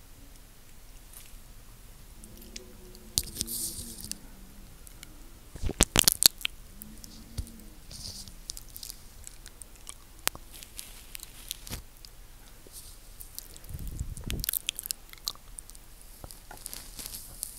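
Wet mouth sounds right against a microphone: licking and lip smacking, with scattered sharp clicks and a quick run of loud smacks about six seconds in.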